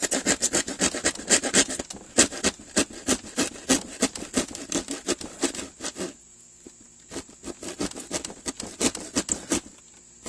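Small hand saw cutting through a plywood sheet in quick back-and-forth rasping strokes, with a short pause about six seconds in before the strokes resume.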